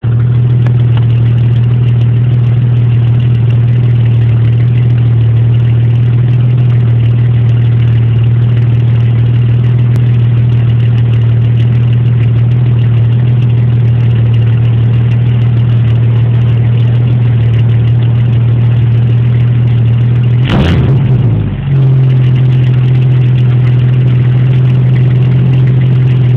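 Mid-1970s Ford Granada Ghia's exhaust at a steady idle with a low, even note, then one quick blip of the throttle about 20 seconds in that rises and falls before settling back to idle.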